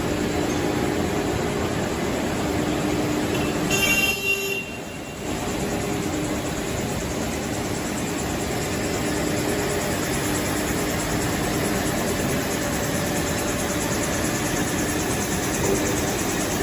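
Steady industrial machine noise from a running mechanical power press, with a low hum. About four seconds in there is a brief high metallic ringing, and the noise dips for a moment just after.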